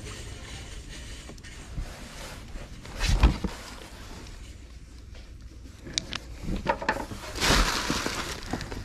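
Items being handled in a cardboard box: a single thump about three seconds in, then plastic wrapping and bags rustling near the end.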